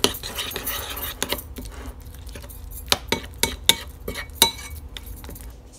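Metal spoon stirring a thick cheese-and-egg chaffle batter in a bowl: scraping in the first second, then a run of irregular sharp clinks of the spoon against the bowl.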